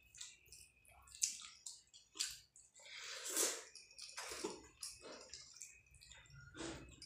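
Wet squishing of rice and chicken curry being mixed and squeezed together by hand on a plate, in short irregular bursts, along with mouth sounds of chewing a mouthful.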